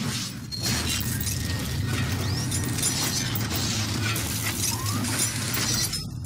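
Logo-reveal sound effects: glassy shattering and crackling debris over a steady low rumble.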